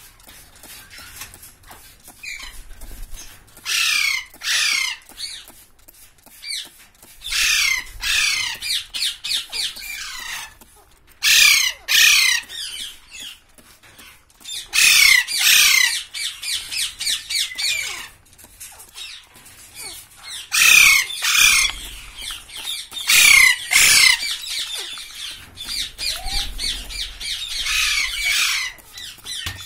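Alexandrine parakeets screeching: repeated harsh calls, each burst a quick run of falling notes lasting about a second, coming again and again with short gaps.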